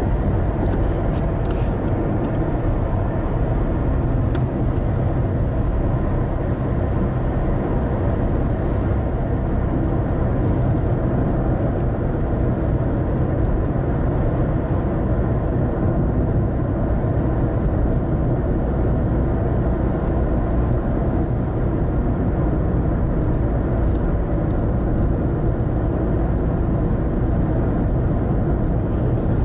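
Steady engine and road noise of a moving car, heard from inside the cabin down by the pedals.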